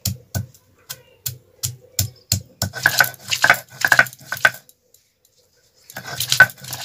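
Stone roller (nora) knocking down on a flat grinding stone (shil), about three blows a second, as garlic, ginger and chilli are crushed, then scraping back and forth as they are ground into paste. The grinding stops for about a second and starts again near the end.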